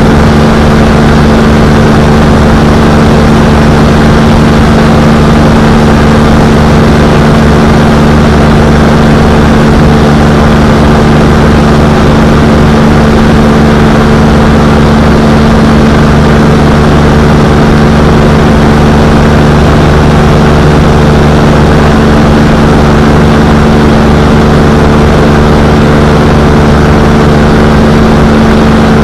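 Quicksilver Sport 2S ultralight's engine and propeller running at a steady cruise setting, a loud, even drone that neither rises nor falls.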